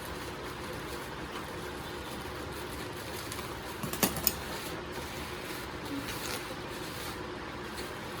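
Packaging being handled: two sharp crackles close together about four seconds in, over a steady background hiss, as bubble wrap around a boxed keyboard is opened.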